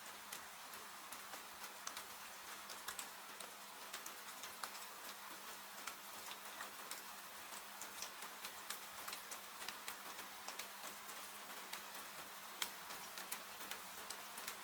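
Steady hiss of rain falling, with the irregular sharp crackles and pops of a wood fire burning in a fireplace.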